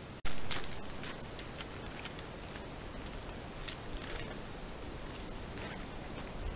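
Bull elk grazing, its teeth cropping dry grass in irregular crisp snips, several a second, over steady hiss. A short gap and a sharp click open it, where the recording cuts in.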